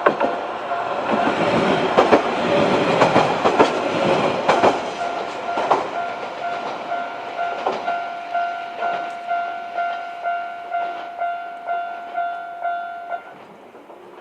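Japanese level-crossing warning bell ringing in steady repeated pulses while a two-car YR-880 diesel railcar passes, its wheels clicking over the rail joints. The train noise fades over the next few seconds, and the crossing alarm stops about a second before the end as the crossing clears.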